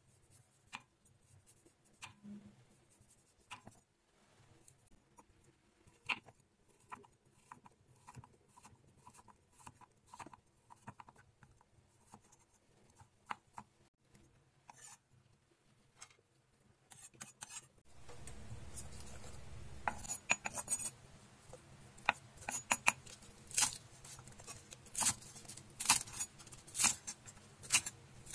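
Chef's knife cutting carrot, then spring onions, on a thick wooden chopping board: irregular sharp knocks of the blade on the board. The knocks get louder and quicker in the last third, and a low steady hum comes in about two-thirds of the way through.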